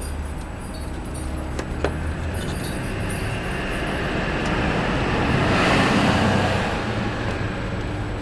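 A road vehicle passing by, swelling to its loudest about six seconds in and then fading, over a steady low hum. A few light clicks come in the first two seconds.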